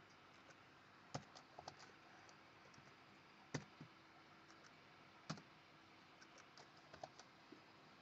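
Scattered faint clicks of a computer keyboard and mouse as a spreadsheet formula is entered, with three sharper clicks standing out at roughly two-second intervals.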